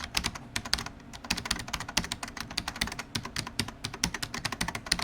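Rapid typing on a computer keyboard, many irregular keystroke clicks in quick succession.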